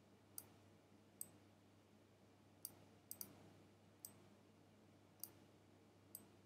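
Faint, sharp computer mouse button clicks, about eight at uneven intervals, over a faint low steady hum.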